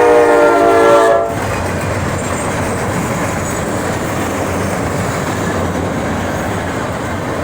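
Locomotive horn sounding a held chord that cuts off about a second in, followed by the steady rumble and clatter of rail cars rolling past.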